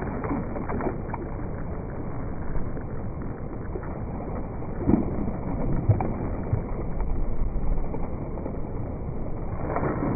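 Rain falling, a steady rushing noise, with a couple of brief knocks about five and six seconds in.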